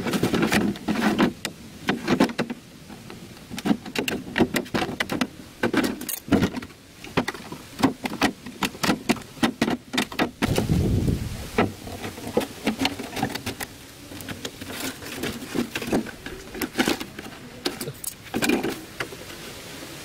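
Scissors snipping through a thin clear plastic jar, the plastic clicking and crackling with each cut, then the cut jar crinkling and rattling as it is handled and set into place.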